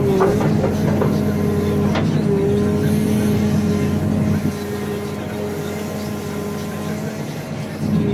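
CAT 432F2 backhoe loader's diesel engine running steadily under hydraulic load while the backhoe bucket is worked through sand, with a few short knocks near the start and about two seconds in. The engine note dips briefly about two seconds in and runs a little quieter for a few seconds before picking up again near the end.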